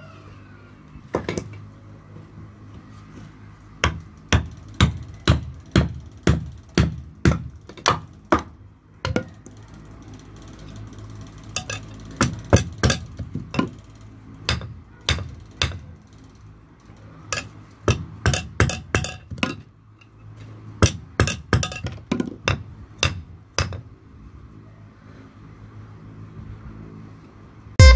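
Sharp knocks of a chisel's wooden handle being driven down against an iron anvil block to seat the hand-forged chisel's tang in the handle. One knock about a second in, then four runs of knocks at about two a second, with pauses between; loud electronic music starts at the very end.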